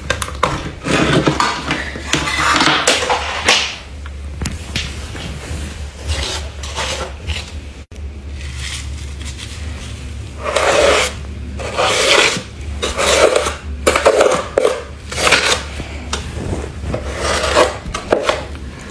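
Hand brushing and scraping against thick frost inside a freezer: a run of short, irregular scraping and rubbing strokes, louder and coming about once a second from about ten seconds in. A steady low hum runs underneath.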